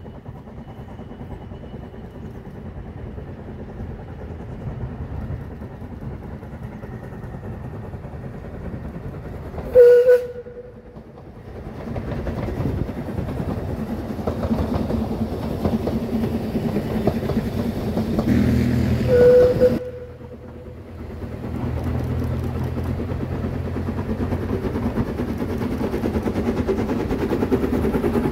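Saxon VI K narrow-gauge steam locomotive and its carriages running past, the noise growing as the train nears. Its steam whistle gives two short blasts, about ten seconds in and again just before twenty seconds; these are the loudest sounds. The noise dips briefly after the second blast, then builds again as the train passes close.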